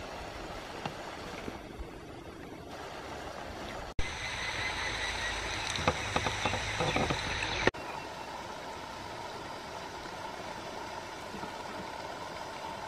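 Steady outdoor background noise, an even rushing hiss. Between about four and eight seconds in, a louder stretch with scattered clicks and faint high steady tones starts and stops abruptly.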